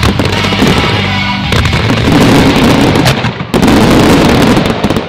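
Music with a fireworks display: about a second and a half in, a dense barrage of aerial shells bursting and crackling takes over, with sharp bangs around three seconds in. The barrage cuts off just before the end.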